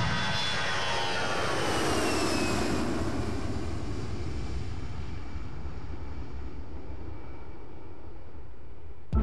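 Airbus A320-family twin-jet airliner passing on takeoff. The engine whine falls in pitch over the first few seconds, then the jet noise slowly fades away.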